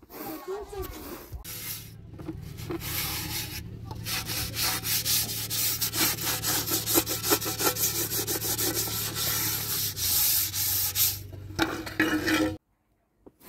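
Scouring pad scrubbing the inside of an aluminium cooking pot: fast, repeated scratchy rubbing strokes that stop abruptly near the end.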